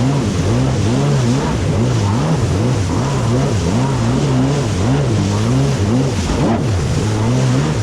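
Two-stroke stand-up jet ski engine running hard through river rapids. Its pitch surges up and down every second or so, over a steady rush of water and wind.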